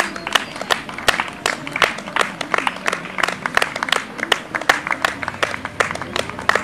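Roadside spectators clapping for passing runners: sharp, scattered claps from a few people, several a second.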